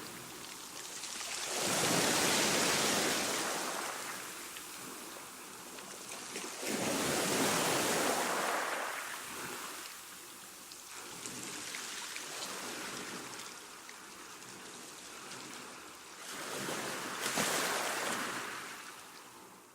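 Calm sea wash: small waves washing in and drawing back in slow surges, three larger ones standing out, fading out near the end.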